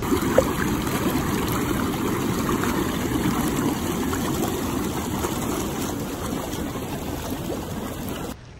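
Hot tub jets churning the water, a steady dense bubbling close by, which stops abruptly near the end.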